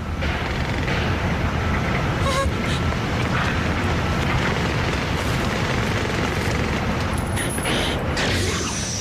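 A steady low rumble with hissy noise over it, and a faint high whistle sliding down near the end.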